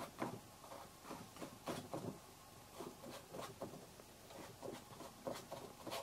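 Faint, scattered light taps and scrapes of hand work on a painting, a brush or tool touching the board at irregular intervals.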